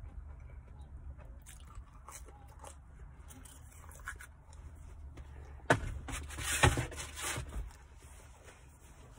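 Close-up chewing of pizza crust with small mouth clicks, then a loud rustling scrape about six seconds in, lasting a second or two, from hands handling things close to the microphone.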